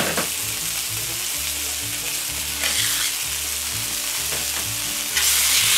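Thick minced-meat burger patties sizzling on a hot steel griddle plate while they are turned over with a spatula. The sizzle swells louder about five seconds in, as a turned patty goes back down on the hot plate.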